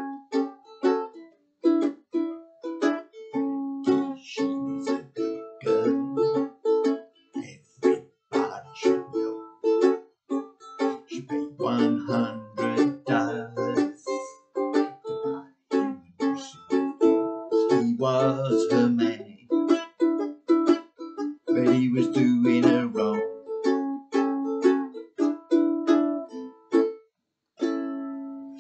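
Ukulele strummed in a steady rhythm through a 12-bar blues chord pattern in A (A, D and E7 chords).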